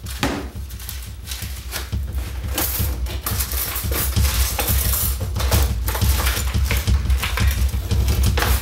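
Glassware, bottles and cutlery clinking and clattering as kitchen cupboards and a cutlery drawer are rummaged through, with a rattle of metal cutlery in the drawer near the end. A steady low rumble runs underneath.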